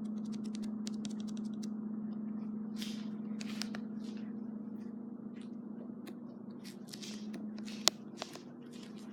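A steady low hum under scattered clicks, scrapes and rustles, with one sharp click about eight seconds in.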